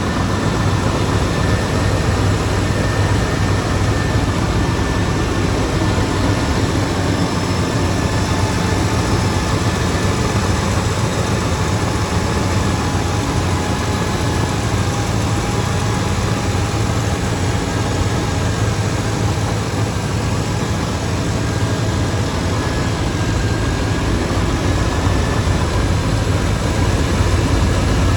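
Chevrolet 305 small-block V8 with throttle-body injection, a used replacement engine just installed in a 1995 Silverado, running steadily shortly after its first cold start, with a faint steady whine above the engine note. The ignition timing has not yet been set.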